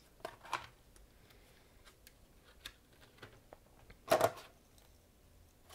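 Stiff clear plastic clamshell package being handled and opened: scattered light clicks and short crackles, with one louder crackle of the plastic about four seconds in.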